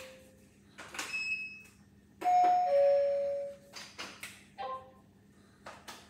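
Robot vacuums' power-on beeps and chimes as they are switched on one after another: a short high beep about a second in, then a falling two-note chime, the loudest sound, a few sharp clicks, and another brief chime near the end.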